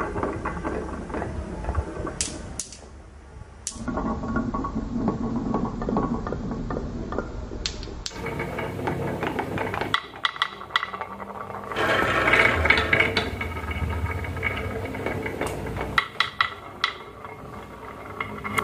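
Glass marbles rolling along wooden marble-run tracks. A steady rolling rumble is broken by many small clicks as the marbles knock against the wooden channels and each other, loudest around the middle.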